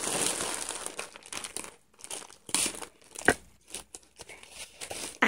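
Black plastic poly mailer bag crinkling in irregular bursts as hands work at it to get it open, with one sharp click about three seconds in.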